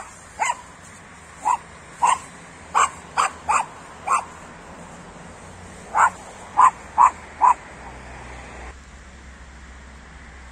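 A dog barking in short single barks, eight in the first four seconds, then four more after a brief pause.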